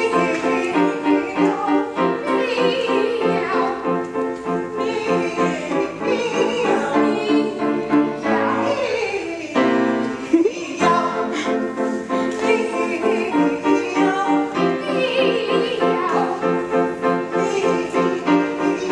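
Operatic classical music with singing and piano; near the middle a sound glides down in pitch and back up.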